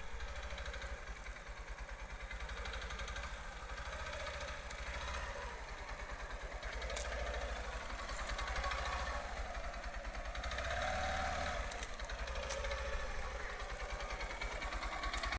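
Motorcycle engine running steadily with a low, rapid pulsing.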